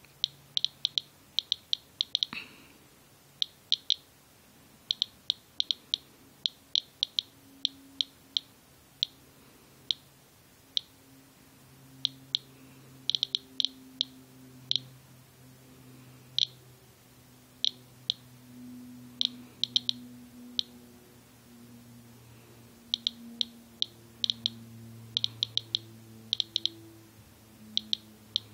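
Medcom Inspector USB Geiger counter clicking at random, uneven intervals, sometimes several in quick succession, each click one detected count. The display reads about 170 to 196 counts per minute, several times the 39.6 CPM normal background.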